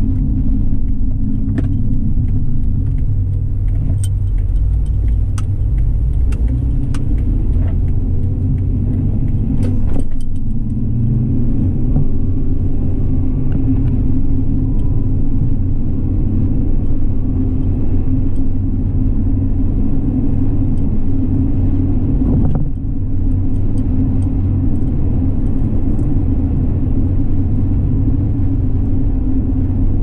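A car being driven, with a steady low rumble of road and engine noise. A few light clicks or rattles sound in the first ten seconds.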